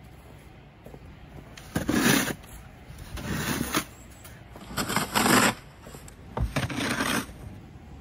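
Snow shovel blade scraping along the driveway and scooping snow, four strokes about a second and a half apart.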